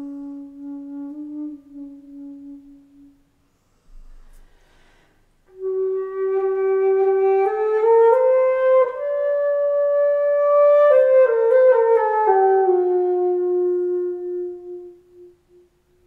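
Solo flute improvising: a low held note fades out, then after a short pause a slow phrase climbs step by step to a held higher note and steps back down to a long low note that dies away.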